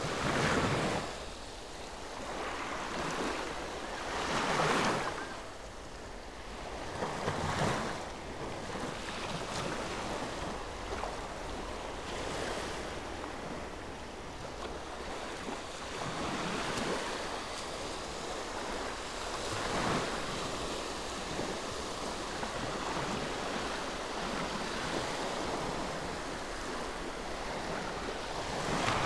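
Sea waves washing around close by, the wash swelling and fading every few seconds, with wind on the microphone.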